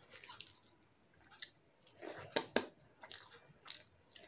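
Close-up eating sounds: rice and soybean curry mixed by hand on a steel plate and eaten, with soft wet squishes, chewing and small mouth clicks. Two sharper clicks come close together about two and a half seconds in.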